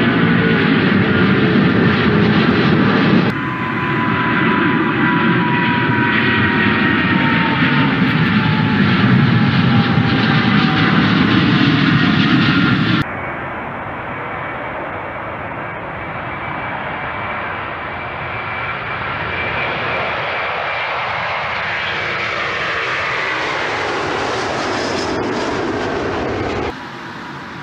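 Jet engines of a twin-engine Airbus A330 airliner climbing out after takeoff, loud, with whining tones that slowly fall in pitch as it passes. About halfway through, a sudden cut to another A330 at takeoff thrust, a quieter steady roar as it rolls and lifts off. About a second before the end, a cut to a different jet.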